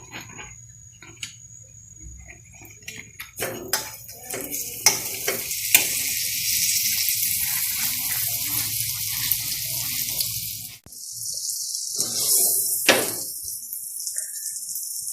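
Butter melting and sizzling in a hot non-stick pan, a steady hiss that sets in after a few light clicks of handling about three seconds in, and breaks off and resumes near the end.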